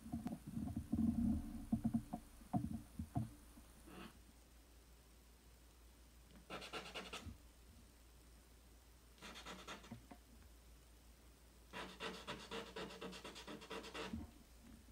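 Charcoal scratching and rubbing on drawing paper in three stretches, the longest near the end. Low bumps from the hand against the drawing board come first, in the opening few seconds.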